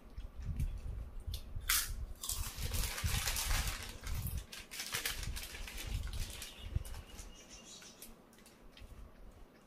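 Lay's potato chips being crunched and their foil chip packets crinkled: a scatter of short, crisp clicks, with a denser rustle about two seconds in, over low handling bumps.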